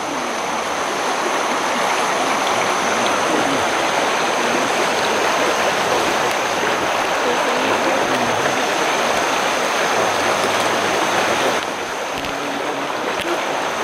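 Chattooga River running over a shallow ford, a steady rush of water over rocks. It drops slightly in level near the end.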